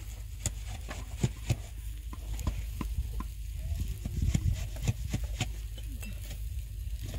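Irregular sharp taps, clicks and scraping of hand work on a concrete-block wall, as blocks and mortar are handled and set, over a steady low rumble.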